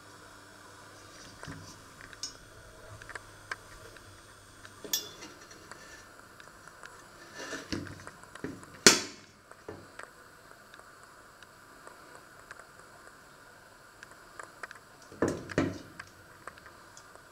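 Scattered kitchen clicks and knocks, metal and handling noises around the stove, with one sharp loud knock about nine seconds in and a small cluster of knocks near the end, over a faint low hum that stops about five seconds in.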